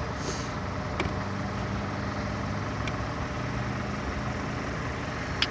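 A vehicle engine idling steadily, with a couple of small ticks.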